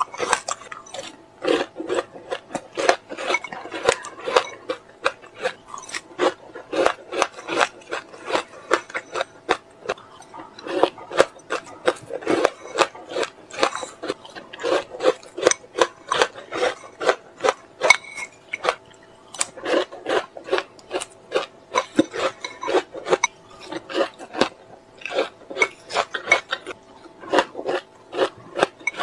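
Frozen passion-fruit ice cubes crunched between the teeth, close to the microphone: a dense run of crisp cracks, several a second, in clusters with short gaps.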